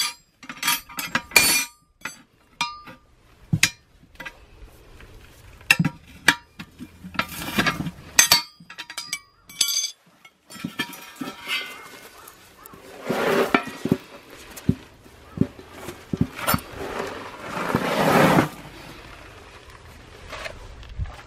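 Steel tire levers clinking and knocking against a Galant's steel wheel rim as a hard, aged tire is pried off by hand, with many sharp metallic clinks at first, then two longer scrapes a few seconds apart in the second half as the bead is worked over the rim.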